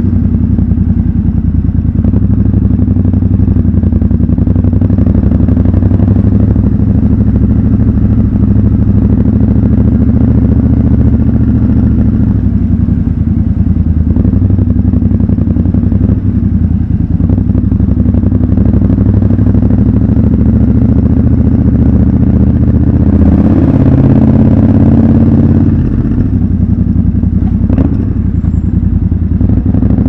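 Triumph Scrambler 1200 XC's 1200 cc parallel-twin engine running at low revs as the motorcycle rolls through an underground car park. The engine note rises briefly about three quarters of the way through, and there is a single sharp click near the end.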